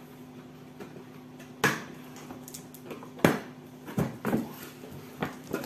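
Cardboard box being opened by hand: its flaps pulled, scraped and knocked in several short, sharp bursts, the loudest a little over three seconds in. A steady low hum runs underneath.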